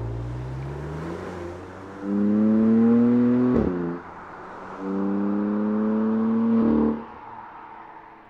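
BMW M4 Convertible's twin-turbo straight-six pulling hard twice in rising pitch, with a sharp crack and a quick drop in pitch at the gear change between the pulls. The engine note cuts off abruptly near the end and fades as the car drives away.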